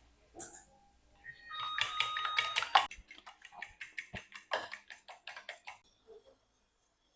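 A quick run of clicks, taps and clinks from kitchen utensils and dishes being handled during baking. Some of the strikes ring briefly. It starts about a second in and stops about two-thirds of the way through.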